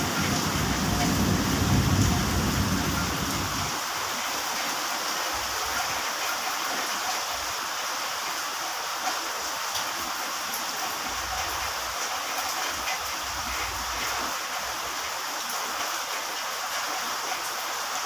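Heavy rain falling steadily, an even hiss. Wind buffets the microphone with a low rumble for the first few seconds and again briefly near the middle.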